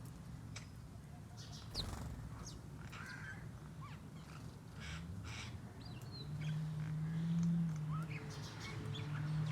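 Birds chirping, many short scattered calls and quick whistled glides. Under them runs a low steady hum that grows louder in the second half.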